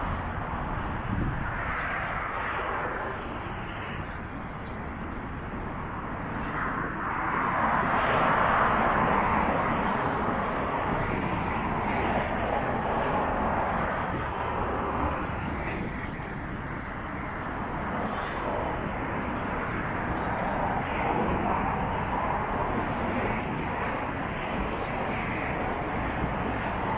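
Road traffic: cars passing on a multi-lane city street, a steady hiss of tyres and engines that swells as each car goes by, loudest about eight to ten seconds in.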